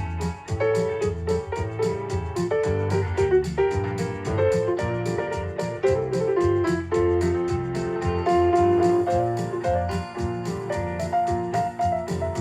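Background music: piano or electric keyboard playing chords over a bass line, with a steady, quick beat of ticks.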